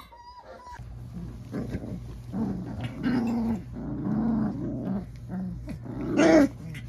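A litter of young puppies play-growling and yipping as they wrestle together, with a louder, higher yip about six seconds in. A steady low hum runs underneath.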